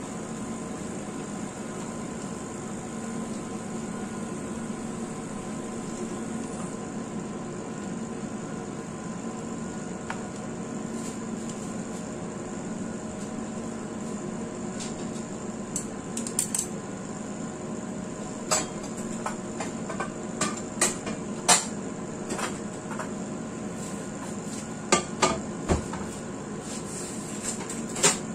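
Metal kitchen utensils and dishes clinking and knocking, a scattered handful of sharp strikes in the last third, over a steady mechanical kitchen hum while bok choy cooks in a steaming pan.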